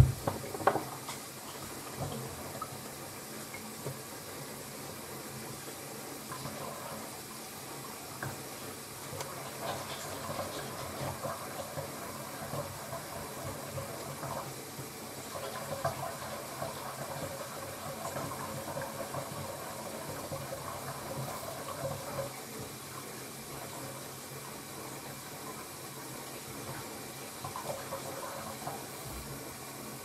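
Tap water running steadily into a bathroom sink whose drain is clogged further down the line, so the basin fills and backs up instead of draining.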